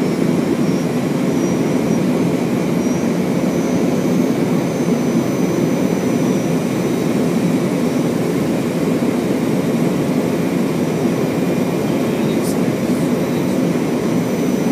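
Steady Fokker F100 flight-deck noise on approach: a constant rush of airflow and jet engine sound, with faint steady high-pitched tones over it. A short tick comes about twelve seconds in.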